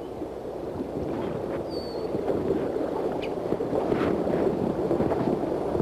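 River current washing around a wading man and a loaded inflatable raft: a steady rush of water noise that grows a little louder, with a few short light splashes.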